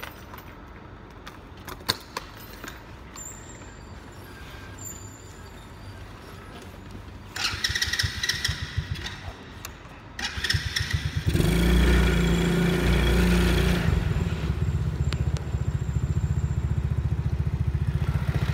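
An ATV engine being started: a few clicks, then the starter cranks, and on a second try about eleven seconds in the engine catches and runs steadily.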